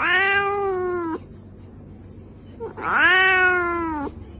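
A cat meowing twice, two long drawn-out meows of a second or so each, about a second and a half apart, each dropping slightly in pitch at the end. The second meow is a little louder.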